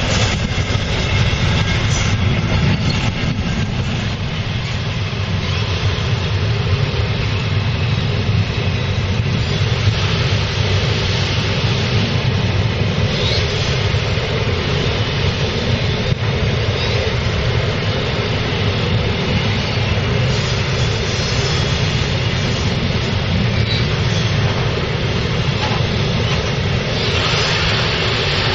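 Long freight train of covered bogie wagons rolling past close by: a steady, continuous rumble and rattle of steel wheels on the rails.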